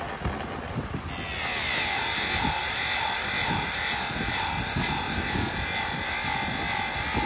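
Small electric rotary sharpening tool starting about a second in and running with a high whine that dips and recovers about twice a second as it grinds the chainsaw chain's cutters.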